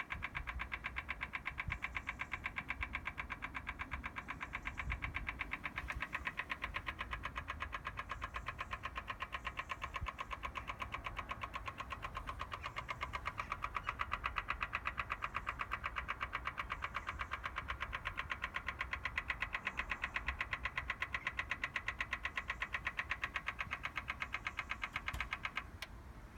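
Fast, even clicking from a BMW M4 Competition Pack with the ignition still off, the intermittent cold-car noise that begins as soon as a door or the boot is opened. It stops suddenly near the end.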